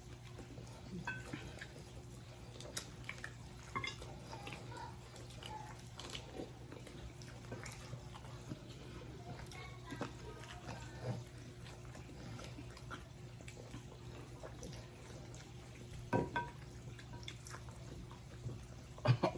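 Faint eating sounds while chicken wings are being eaten: scattered small clicks and smacks of chewing and of handling the wings, over a low steady hum.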